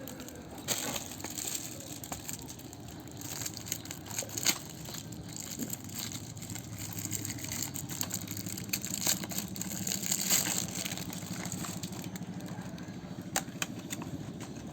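Scattered clicks and crinkles of plastic lure packaging being handled, over a low steady hum that grows stronger about halfway through.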